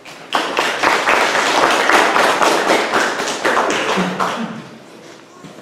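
A small group of people applauding, the clapping starting just after the beginning and dying away about four and a half seconds in.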